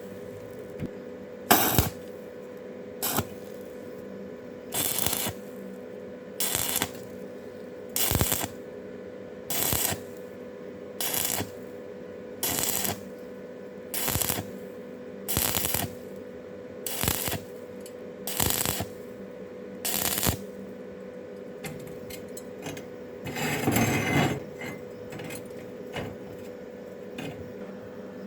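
Stick (arc) welding of thin steel angle iron with a 6013 electrode, laid on lightly in short crackling strikes of about half a second, roughly every second and a half, over a steady hum. Near the end one longer, rougher stretch of arc.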